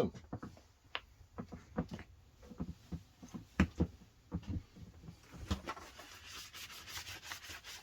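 Handling noise: irregular small clicks and knocks, then a scratchy rubbing sound for the last couple of seconds.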